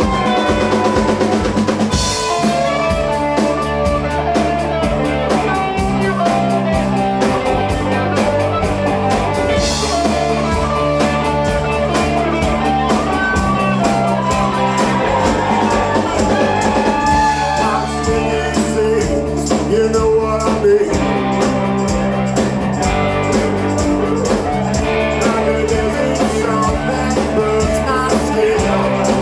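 Rock band playing a song: drum kit with a steady beat, guitars and bass.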